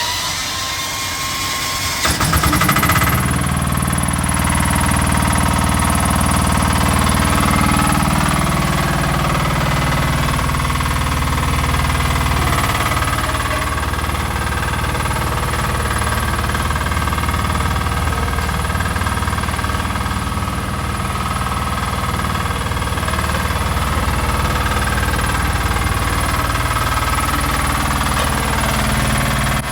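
Mini ride-on road roller's engine running just after starting, stepping up to a higher, louder speed about two seconds in and then holding steady.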